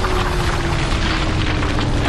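Sound-effect rumble of a dramatized earthquake: a loud, dense low rumble with a low tone sliding slowly downward in pitch underneath.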